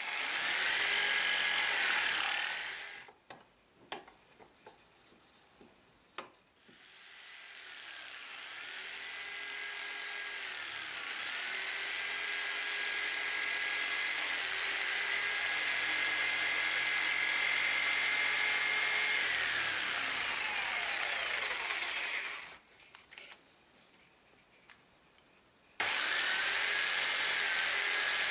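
Skil 500-watt jigsaw running and cutting a thin piece of wood, its motor pitch dipping and rising as it works. It winds down about three seconds in, with a few light knocks in the pause, then spins back up and runs for some fifteen seconds before winding down again. It starts up abruptly near the end.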